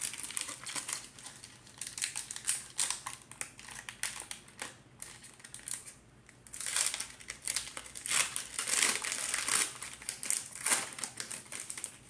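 Crinkling and rustling of a Pokémon card booster pack wrapper as it is handled and opened, growing louder for a few seconds past the middle.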